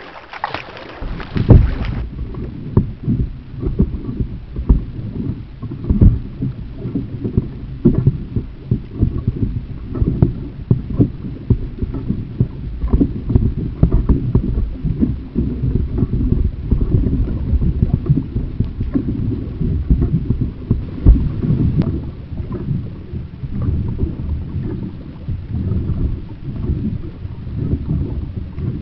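Kayak paddling on the move, heard as a muffled low rumble with frequent irregular knocks and bumps on the camera's microphone.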